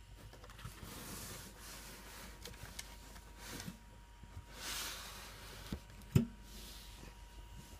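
Faint handling noise: soft rustling and a few small clicks, with one sharp click about six seconds in.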